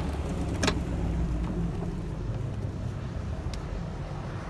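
Ford Shelby GT350R's 5.2-litre flat-plane-crank V8 running as the car rolls past and pulls away, its exhaust note fading slightly as it goes.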